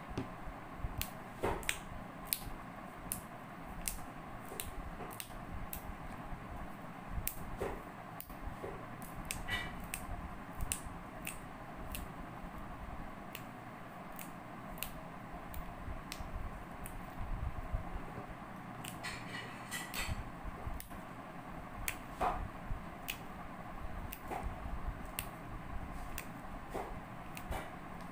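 Kitchen utensils clicking and tapping at irregular intervals during food preparation, over a steady background hum.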